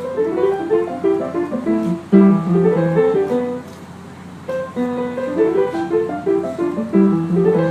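Piano played in short runs of single notes over lower notes. The playing breaks off for about a second near the middle, then picks up again.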